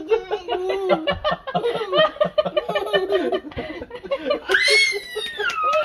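A man and a toddler laughing together in short, chopped bursts. About four and a half seconds in comes one long high-pitched squeal that slides down in pitch.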